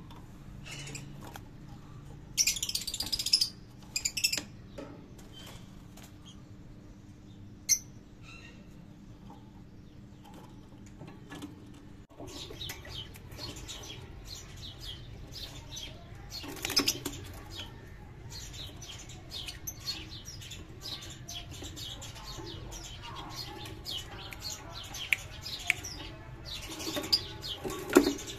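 Caged Fischer's lovebirds: a brief burst of wing flapping a few seconds in, then many short, high chirps from the middle on, with more flapping bursts later.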